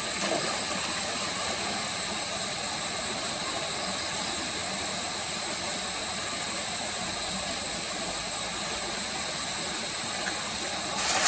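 Steady outdoor hiss with a thin, high, steady whine held above it. The noise turns louder and choppier just before the end.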